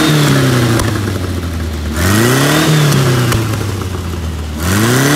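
Stock 1970 Volkswagen Beetle's air-cooled flat-four engine blipped repeatedly: each rev climbs quickly and falls away slowly, one falling off at the start, a full one in the middle and another rising near the end. A few sharp pops come from the exhaust as the revs drop, the car spitting flames.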